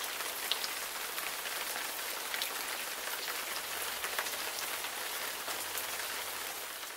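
Steady rain falling and pattering on hard surfaces, a dense hiss dotted with fine drop ticks, beginning to fade out near the end.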